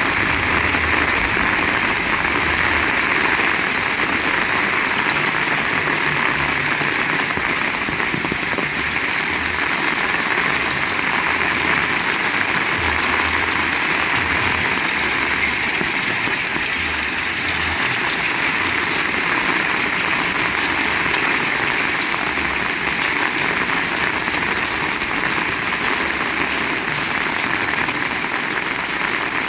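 Heavy rain falling steadily, a dense even hiss of drops hitting surfaces, with intermittent low rumbling underneath.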